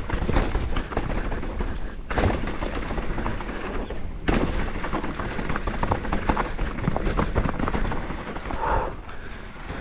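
Mountain bike riding fast down a rough dirt and rock trail: tyres rolling over dirt and stones, the chain and frame rattling and knocking, with wind rumbling on the camera microphone. The noise drops out briefly twice, about two and four seconds in, each time ending with a thud.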